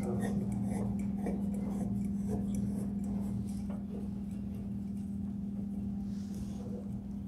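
Faint ticks and light scrapes of a large glass floodlight lamp being screwed into its screw-type metal lampholder, over a steady low hum. A soft rubbing hiss comes near the end.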